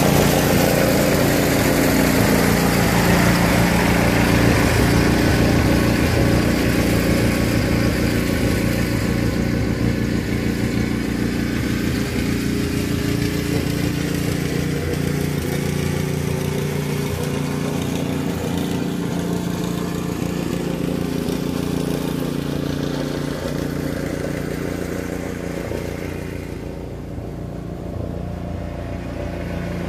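Small engine of a red tow-behind field mower running steadily as it works away across the field. The sound fades slowly, is softest near the end, then grows louder again.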